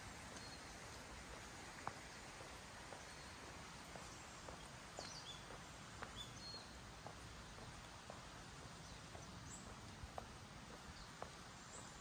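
Footsteps of someone walking at a steady pace, a soft click about every half second, over a faint steady hiss. A few brief, high bird chirps come in now and then, most around the middle.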